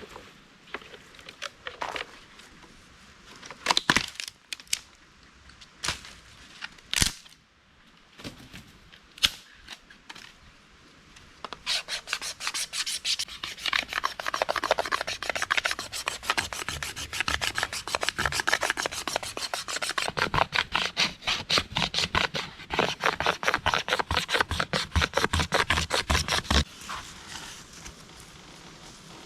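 A few scattered knocks, then about fifteen seconds of rapid, rhythmic scraping strokes, a tool being worked hard against a surface.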